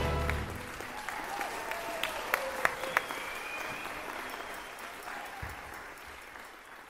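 Audience applauding after a live orchestra performance, fading away gradually, with a few voices or calls above the clapping.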